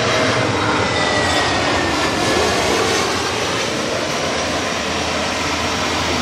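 Jet airliner engines running loud and steady as the plane passes close by: a broad rush of noise with a faint whine that falls slightly in pitch about a second in.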